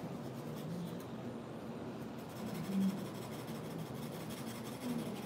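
Stylus scratching a mimeograph wax stencil laid over a gridded plate, as lines are drawn into the stencil.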